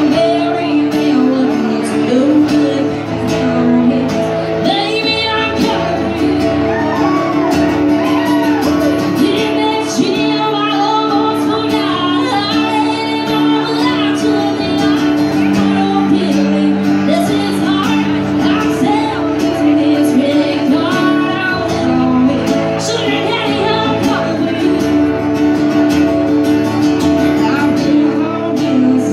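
A woman singing a country song live while strumming an acoustic guitar.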